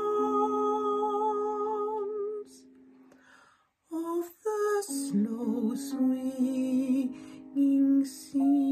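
A woman's soprano voice sings the first-soprano line of a slow choral lullaby in long held notes that waver slightly, over a soft sustained accompaniment. The sound drops away for about a second and a half midway through, then the singing resumes.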